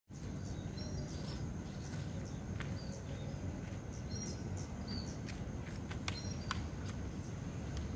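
Outdoor ambience: a steady low rumble with a few brief high bird chirps and a handful of light clicks.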